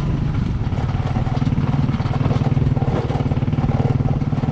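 Small motorcycle engine running at a steady speed under way, with a fast, even putter.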